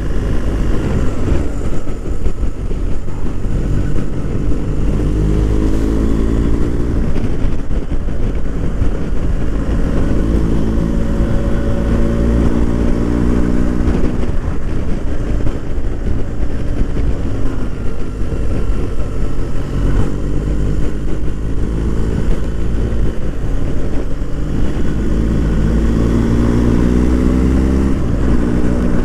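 BMW R1250 GS boxer-twin motorcycle engine pulling through the gears while riding. Its note climbs several times and drops back between climbs, over a constant low rumble.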